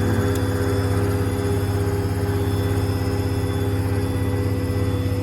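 A Ford F-550's 6.7 L Power Stroke diesel running steadily while the truck's hydraulic crane is worked. A steady whine rides over the engine and cuts off near the end.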